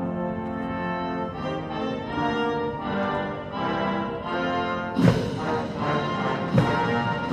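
Marine Corps brass band playing sustained chords, with loud, heavy beats coming in about five seconds in.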